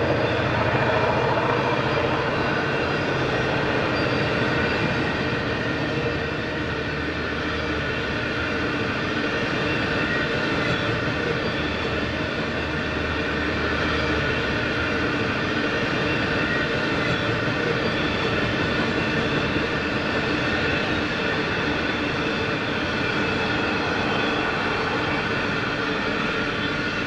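Freight hopper wagons rolling past on the rails: a steady rumble and clatter of wheels with several steady high wheel tones over it. A low engine drone fades out over the first few seconds.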